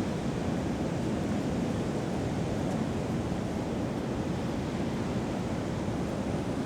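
Heavy post-typhoon surf: a very rough sea's breaking waves make a steady, dense low wash with no lulls.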